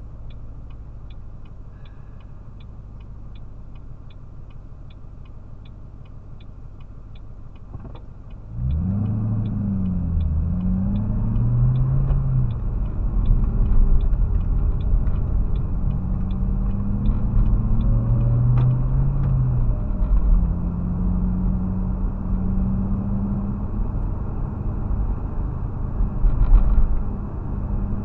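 Car idling at a stop with its turn signal ticking about twice a second. About eight seconds in the car pulls away, and the engine pitch rises and drops as it shifts up through the gears, over steady tyre and road noise. The ticking stops about twenty seconds in, once the turn is done.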